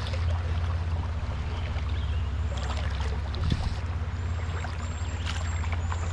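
River current rushing over a rocky bed, with a steady low hum underneath and a few faint, short high chirps in the second half.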